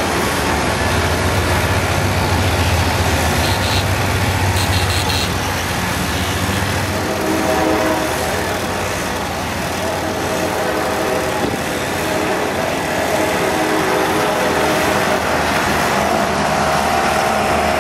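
Several moped engines running, one ridden across the road, over a steady hiss of street noise.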